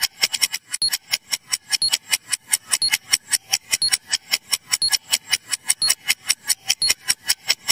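Countdown timer sound effect: a rapid clock-like ticking, about five ticks a second and evenly spaced, as the answer time runs down.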